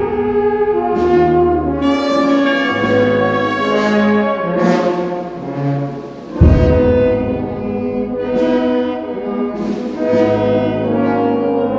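Brass band playing a Guatemalan funeral march: trombones, trumpets and horns hold slow sustained chords. A loud low-pitched hit lands about six and a half seconds in.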